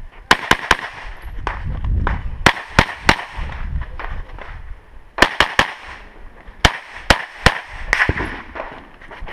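Gunshots fired in quick strings of two or three, about a third of a second apart, with a pause of about two seconds near the middle of the run.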